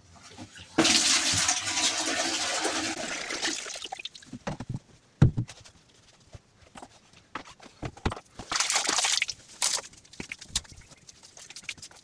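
Water poured from a plastic jug into a plastic bucket, a steady rush lasting about three seconds, for mixing mud plaster. Scattered knocks follow, with a shorter rush of noise near the end.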